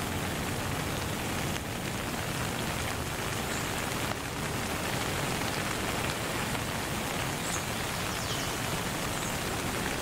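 Steady rain falling, with a few faint high chirps now and then.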